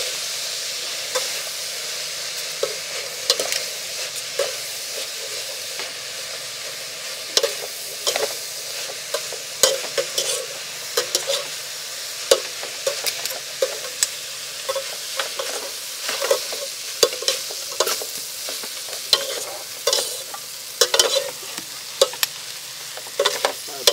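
Food frying in a pan with a steady sizzle, while a cooking utensil is stirred through it and knocks and scrapes against the pan at irregular intervals, more often toward the end.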